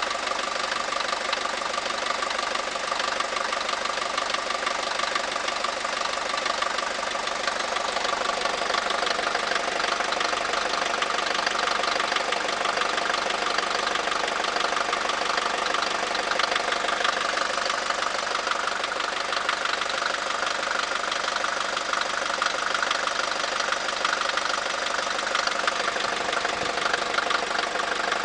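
Mercedes-Benz Vito W638 110D's OM601 four-cylinder diesel idling steadily after a cold start at −2 °C. It makes an even diesel clatter with no knocking.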